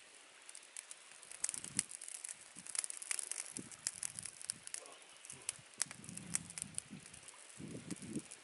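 Small twig campfire crackling, with many sharp pops scattered throughout, and a few low, dull bumps.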